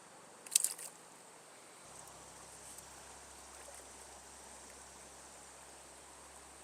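A short splash of water about half a second in, as a caught rainbow trout is let back into the stream, followed by the faint, steady rush of a stream running high.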